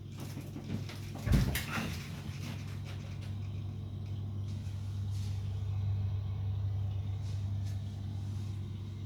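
IKEA KÖLDGRADER refrigerator's compressor running with a steady low hum, growing slightly louder through the middle. One sharp knock comes about a second and a half in.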